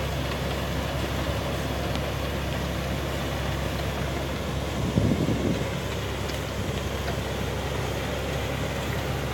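A combine harvester's diesel engine runs steadily as it unloads threshed wheat grain into a tractor trolley. There is a brief louder surge about five seconds in.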